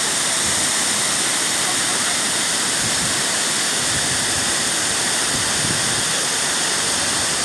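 Uchan-Su waterfall: water falling in a steady, unbroken rush of noise.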